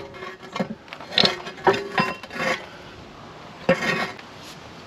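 Steel parts of a mini excavator thumb and its pivot pin clanking and clinking: a run of metal knocks with a brief ringing, about six in the first two and a half seconds, then a longer scraping clank about four seconds in as the thumb is worked off its pin.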